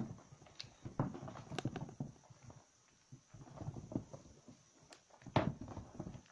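Hands squeezing slightly soaked bars of laundry soap in thick lather, squishing in irregular bursts. There is a quieter lull in the middle and the loudest squish comes about five seconds in.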